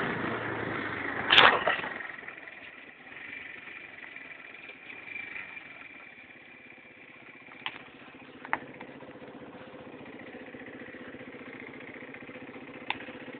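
Quad (ATV) engine running as it rides along a dirt track. There is a loud knock about a second in, after which the engine runs quieter and steadier, with a few light clicks.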